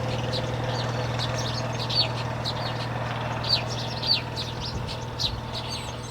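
Flock of Maya birds (weaver birds) chirping around their nests: many short, sharp, downward chirps, irregular and overlapping, with a few louder ones about two seconds in and near four seconds. A steady low hum runs underneath.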